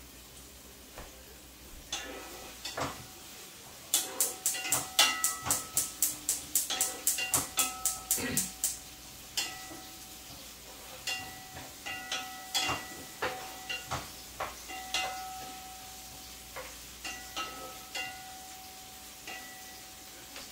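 Wooden spatula knocking against a pan while stirring onions: a fast run of ringing clacks, about four or five a second for some five seconds, then scattered knocks.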